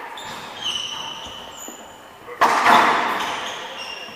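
A racquetball hit hard, one loud crack about two and a half seconds in that rings on in the echo of the enclosed court. Sneakers squeak on the hardwood floor around it.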